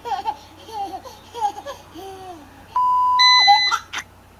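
Baby laughing and babbling in short bursts. Nearly three seconds in, a steady one-tone bleep sounds, and a higher beep overlaps its end.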